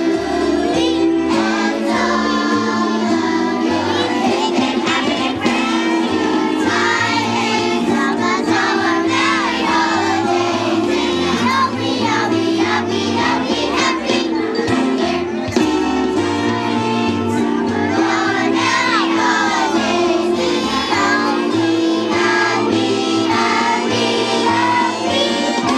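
Children's choir singing a song together over instrumental accompaniment, the voices carrying the melody over steady held low notes.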